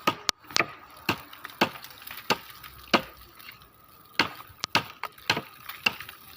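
A series of sharp knocks or chops, about a dozen, irregularly spaced at roughly two a second.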